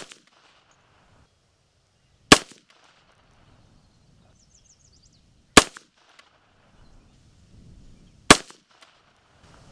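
Unsuppressed rifle shots fired slowly, one at a time: three sharp reports about three seconds apart, each followed by a brief echo.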